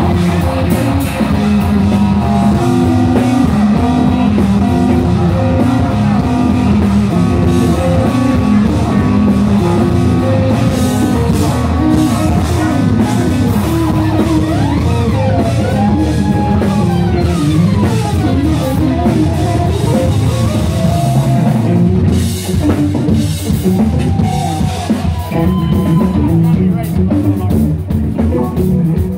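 Live rock band playing loudly: electric guitar, electric bass, keyboards and drum kit together. In the middle, notes slide up and down in pitch.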